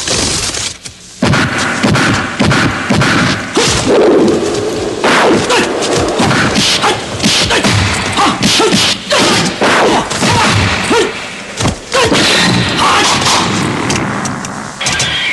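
Fight-scene sound effects from a kung fu film: punch and kick impacts, many in quick succession.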